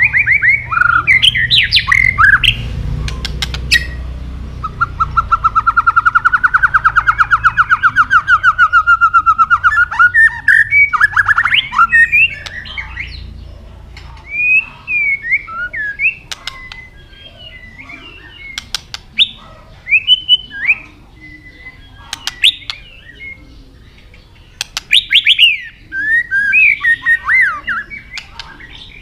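White-rumped shama singing: varied whistled phrases, a fast rattling trill of rapid notes lasting about five seconds a few seconds in, and sharp clicks scattered between the phrases.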